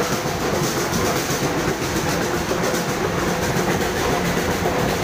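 Steady din of a crowded street procession: many people and the running engines of motorcycles and small trucks moving slowly through the street, with no clear rhythm.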